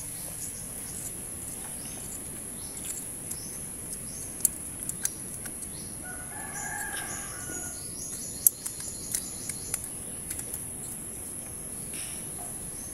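A rooster crowing once, about six seconds in, over a steady high hiss, with scattered sharp clicks of small tools and parts being handled during carburetor work.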